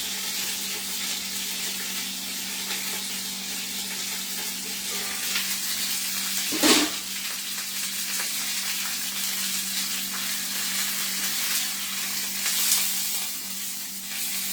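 Chuck roast searing in hot olive oil in a pan on high heat: a steady sizzle with grease popping, and one sharp, louder pop about halfway through.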